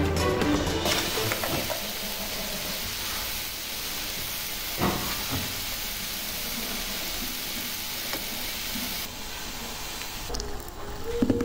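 Steady hiss of steam rising from a freshly steamed rice cake in its bamboo steamer, with a single knock about five seconds in. The hiss thins out near the end.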